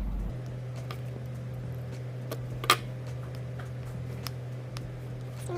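Light clicks and small scrapes from working a blade and a thick gauge 6 aircraft wire while peeling off its slit insulation, with one sharper click about two and a half seconds in. A steady low hum runs underneath.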